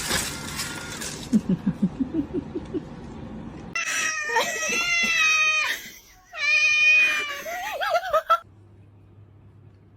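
A cat giving two long, drawn-out meows, one after the other, the second wavering in pitch before it cuts off.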